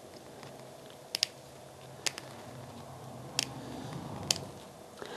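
Small scissors picking and snipping at the starched layers of a machine-made linen button: about five short, sharp clicks at irregular intervals.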